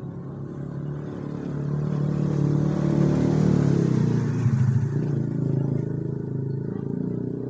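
A motor engine running steadily, growing louder in the middle and then easing off a little.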